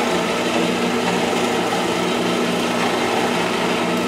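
Drill press running steadily, its boring bit cutting a hole through a plywood board: a steady motor hum under a rough cutting and chipping noise.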